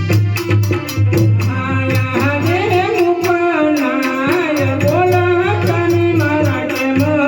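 Gujarati devotional folk music: a singer's ornamented, gliding melody comes in about two seconds in, over steady hand-drum beats and a sustained keyboard drone.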